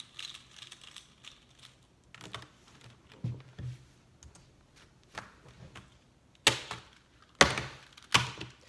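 Light plastic clicks and taps of a Rubik's Cube being turned and handled, then three sharp knocks near the end, about a second apart.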